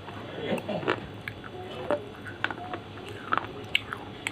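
Slate pencil being bitten and chewed: a string of short, sharp crunches and clicks, several a second at times.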